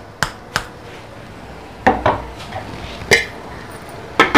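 Knocks and metal clanks of aluminium cookware, ending with an aluminium lid set onto the pan with a quick cluster of clatters near the end. There are a couple of light knocks in the first second and two or three ringing clanks in the middle.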